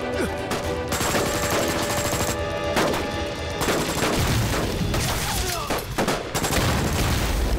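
Dense battle gunfire: rifles firing many shots in quick succession. A steady film score plays underneath in the first half.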